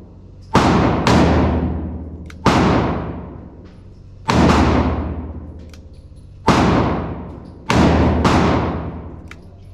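Handgun shots, six in about seven seconds at an uneven pace, each one followed by a long, echoing decay.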